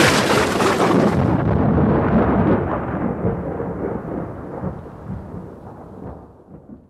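A thunderclap rolling away: loudest at the start, its high crackle dying out within the first second or two while a low rumble fades gradually to nothing by the end.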